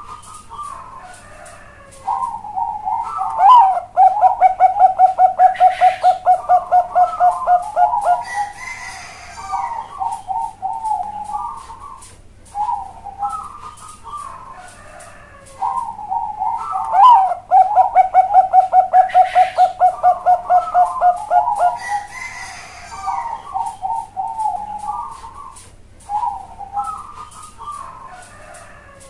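Zebra dove of the Thai-bred perkutut bangkok strain singing its cooing song twice. Each phrase opens with a few coos, runs into a rapid trill of about five notes a second lasting roughly four seconds, and ends in a few broken trailing coos.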